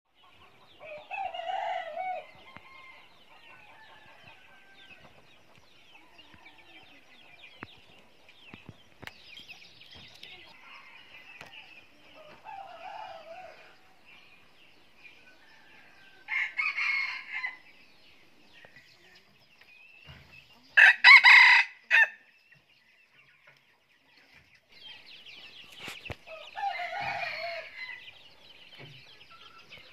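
Roosters crowing, about five crows spread out with long gaps between them; the loudest and closest comes about two-thirds of the way through. Chickens cluck in between.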